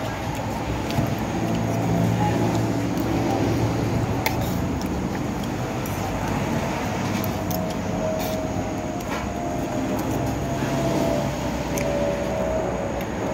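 Motor vehicle running: a steady low engine drone with road noise. In the second half a faint whine slowly drops in pitch, and a few light clicks are heard.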